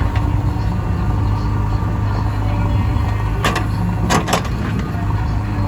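JCB 3DX backhoe loader's diesel engine running steadily, with a few sharp knocks about three and a half and four seconds in.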